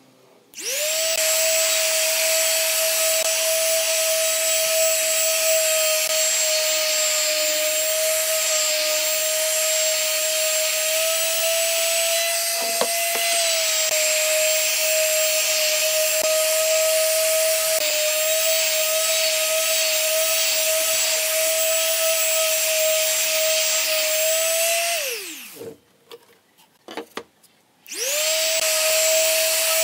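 Electric quarter-sheet palm sander running steadily with a constant whine while sanding a pine board. About 25 seconds in it is switched off and winds down in a falling whine, a few light knocks follow, and it starts up again with a quick rise in pitch.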